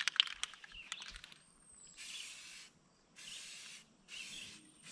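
Aerosol can of Rust-Oleum camouflage spray paint hissing in four short sprays, each about half a second long with brief gaps between, as passes of olive-green base coat go onto an aluminium johnboat hull. A few light clicks come in the first second.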